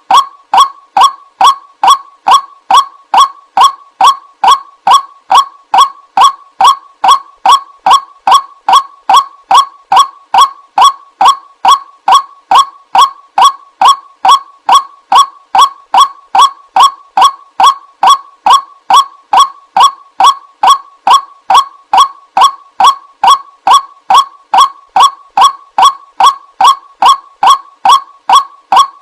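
White-breasted waterhen's honking call, repeated at a steady even pace of about two to three notes a second without a break, looped as a lure call.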